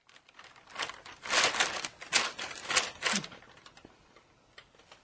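Thin plastic shopping bag crinkling and crackling as a cat shifts about inside it, in a run of crackly bursts lasting about two seconds, then only a few faint crackles.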